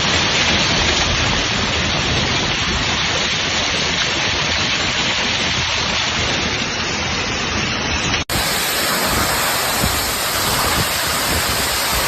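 Heavy rain pouring down in a thunderstorm: a loud, steady hiss, cut sharply about eight seconds in to another stretch of the same downpour.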